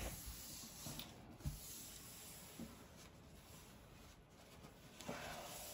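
Quiet room tone with faint rubbing and a few soft, low knocks.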